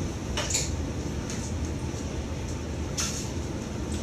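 A few light clinks of bar glassware and tools, a jigger, bottle and ice-filled cocktail shaker being handled, over a low steady room hum.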